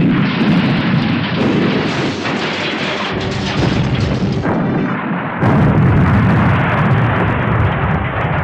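Turner Entertainment 'Elephant Smash' sound effect: a loud, continuous, heavy crashing and smashing din with deep rumble. It changes abruptly a couple of times, as if spliced, about one and a half and five and a half seconds in.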